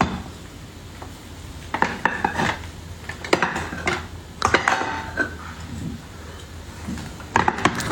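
A kitchen knife cutting food, clinking and scraping against a dish or board in several short clusters of strokes.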